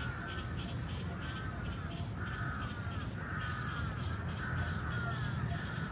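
Birds calling over and over, one call of about half a second after another with a short break about one and a half seconds in, over a steady low rumble.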